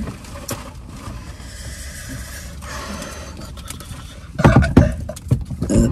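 Rustling and scraping of food cups and packaging being handled, over a steady low rumble, then a cluster of loud knocks and bumps about four and a half seconds in.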